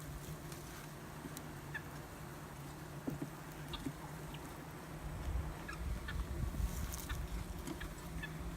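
Honey bees humming steadily around an opened hive, with a few light clicks from the frames being handled.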